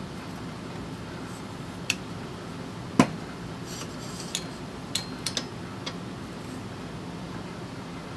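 Light metallic clinks and taps from a steel motorcycle brake disc being handled and test-fitted on a machined aluminum adapter, the loudest about three seconds in and a quick cluster a couple of seconds later, some ringing briefly. A low steady hum runs underneath.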